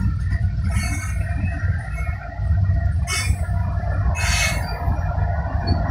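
Coal train's hopper cars rolling past, a steady low rumble of wheels on the rails, with brief high-pitched wheel squeals three times. Under it runs the diesel rumble of the train's rear distributed-power locomotives, GE ES44AC and EMD SD70ACe, drawing near.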